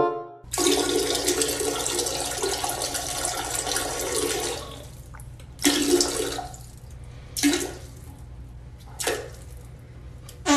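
Toilet flushing: a sudden rush of water that runs for about four seconds and then dies down, followed by three shorter bursts of sound.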